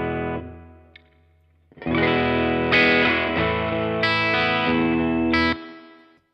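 Electric guitar chords played through a Laney CUB-Super 12, an all-tube 15-watt combo with a single 12-inch speaker. One chord rings and fades out, and after a short pause a new chord is struck and held with a few changes for about three and a half seconds, then stops suddenly.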